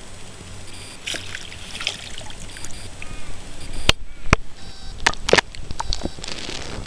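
Water splashing and sloshing against a kayak as a bream held in the water is released, with several sharp knocks close together around the middle.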